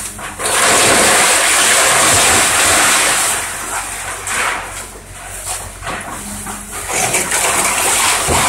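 Timber splintering and debris crashing down as a Link-Belt excavator pulls apart a wooden house, in two loud stretches: one from about half a second in lasting some three seconds, another near the end. A low steady engine hum runs underneath.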